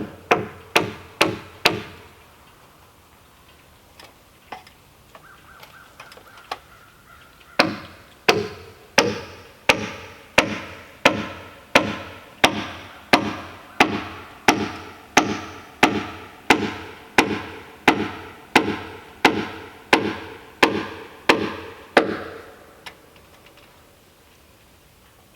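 A hand tool striking a wooden timber again and again, each blow ringing briefly. It starts with a quick run of blows, then after a pause settles into a long steady run of about one and a half blows a second that stops a few seconds before the end.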